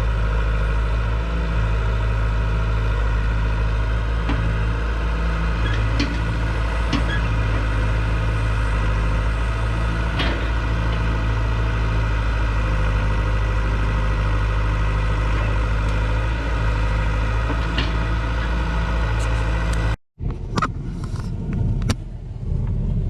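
An engine running steadily at a constant speed, with a few faint clicks over it. About twenty seconds in it cuts off abruptly and gives way to a rougher vehicle rumble.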